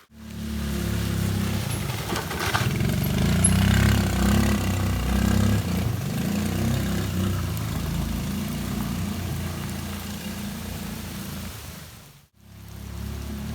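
Suzuki Access 125 scooter's single-cylinder engine running at low revs, the revs shifting up and down while riding over rough ground. The sound cuts out briefly near the end.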